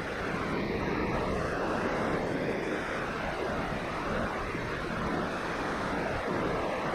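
Steady rushing of a mountain river's fast water.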